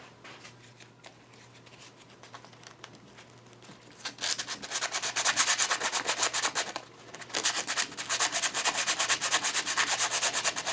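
Sandpaper rubbed by hand in quick back-and-forth strokes on a metal lathe part, starting about four seconds in, with a short pause about two-thirds of the way through.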